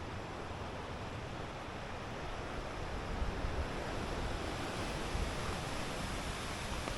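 Steady, even rush of sea surf on the shore.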